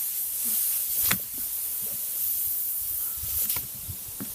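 Air hissing steadily out of a car tyre's puncture hole where a screw has just been pulled out, with a couple of short clicks from handling the tyre and tools.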